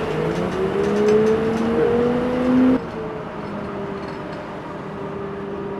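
City bus pulling away, its whine rising steadily in pitch as it gathers speed. A little under three seconds in, the sound drops abruptly to a quieter, steady whine.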